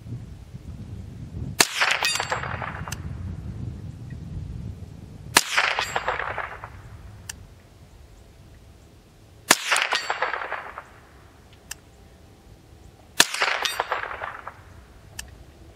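Marlin 795 semi-automatic .22 LR rifle fired four times, roughly every four seconds. Each sharp crack has a short ringing tail.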